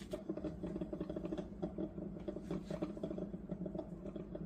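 Drip coffee maker brewing a rinse cycle of clean water. A steady hum sits under many small irregular crackles and pops as the heater pushes the water through.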